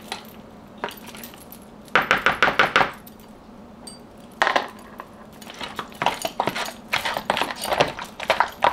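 Metal fork and spoon clinking and scraping against a bowl as mashed sweet potatoes are stirred: a quick run of taps about two seconds in, a few more midway, then rapid clinking through the last few seconds.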